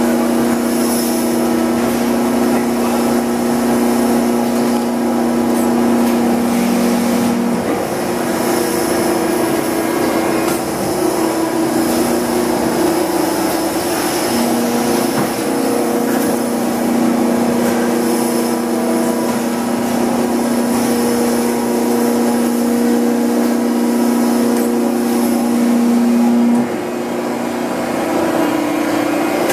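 Hydraulic injection molding machinery running, a steady hum with several pitched tones. The tones shift and drop in and out every few seconds as the load changes, and the sound steps down a little near the end.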